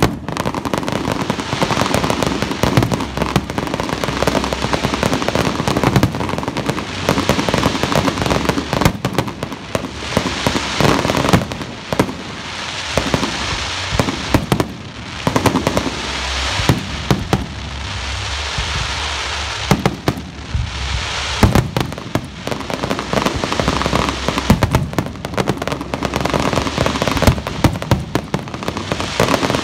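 Aerial firework shells bursting in a rapid barrage, booms and crackles packed closely together, with brief lulls about fifteen and twenty seconds in.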